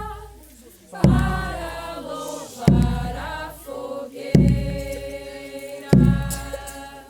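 A group of voices singing a slow festival hymn over a steady drum beat, one deep stroke about every second and a half.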